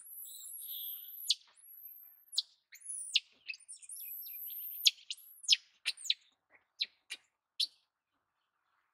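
Small birds chirping: a dense run of short, very high chirps and quick downward-sweeping tweets, thinning to separate single chirps after about five seconds.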